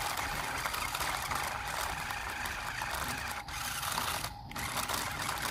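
Small electric motor and plastic gears of a toy RC rock-crawler whirring steadily as it strains to tow a toy dump truck on a chain, with two short breaks in the sound late on.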